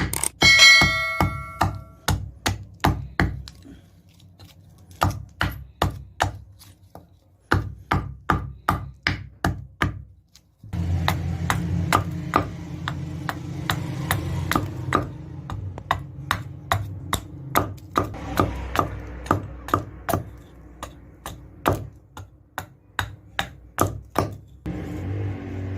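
Hammer blows on metal, forging on an anvil, about two to three strikes a second in runs with short pauses; one early blow leaves the metal ringing. From about ten seconds in, a steady low machine hum runs under the blows.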